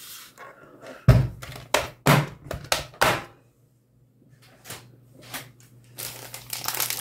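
A mini die-cutting machine and its plates being set out and handled on a craft table: a quick run of knocks and thuds about a second in, a short pause, a couple of light clicks, then paper rustling and crinkling near the end.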